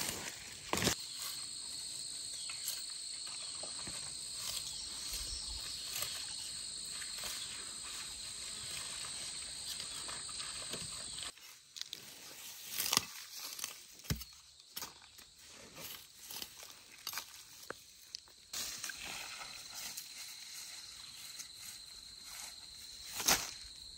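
Insects chirring in a steady high-pitched drone that cuts off abruptly about halfway through and starts again near the end, with scattered light knocks and rustles.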